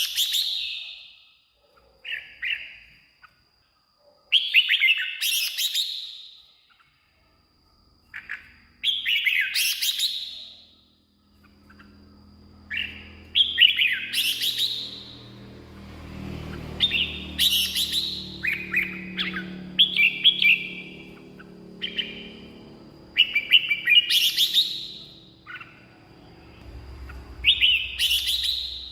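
Red-whiskered bulbul singing short, quick, warbling phrases, one every few seconds with brief pauses between.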